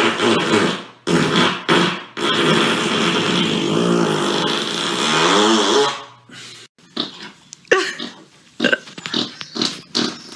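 A person farting: a couple of short blasts, then one long fart of about four seconds that wavers in pitch, then a few short sputters.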